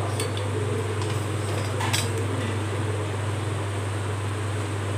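Pot-lifting tongs gripping a steel cake tin and lifting it out of an aluminium kadai: a few light metallic clicks, with one clearer clink about two seconds in, over a steady background hum.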